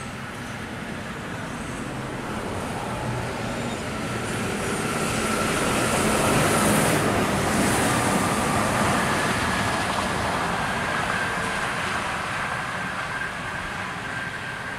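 Intercity coach bus passing at highway speed: its engine and tyre noise swell as it approaches, are loudest about seven seconds in as it goes by, then fade as it drives off. A thin steady whine rides on top of the rush of tyres on the rain-wet road.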